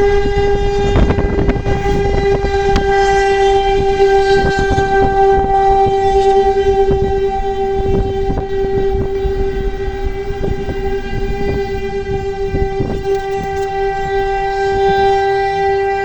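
Civil-defence siren sounding the Czech monthly test signal, one steady continuous tone that does not rise or fall. Uneven low thuds and rumble from the hand-held phone's microphone run underneath it.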